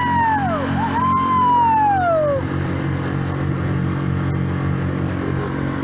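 Car engine running steadily as the car drives along. In the first two and a half seconds a held high tone slides down and fades away, twice.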